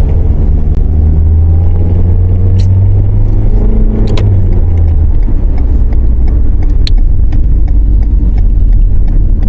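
Audi A4 being driven: steady engine hum over road rumble, the engine tone fading away about halfway through and leaving mostly rumble, with a few faint clicks.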